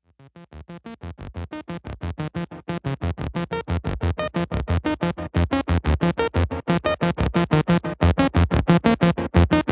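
Intro music: fast electronic music made of short, rapidly repeated pitched stabs that fade in at the start and grow louder.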